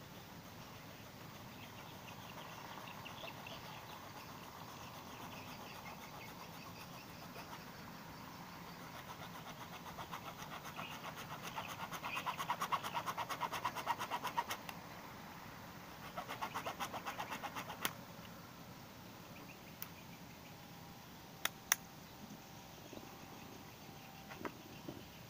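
Hacksaw cutting through a rigid plastic pipe. Rapid back-and-forth sawing strokes grow louder from about ten seconds in, pause briefly, resume, and stop near eighteen seconds. A few sharp clicks follow a few seconds later.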